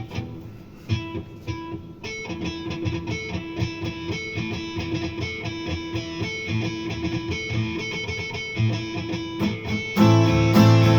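Guitar playing a song's instrumental intro. A few single plucked notes give way, about two seconds in, to a steady picked repeating figure. Near the end it turns into louder strummed chords with a heavier low end.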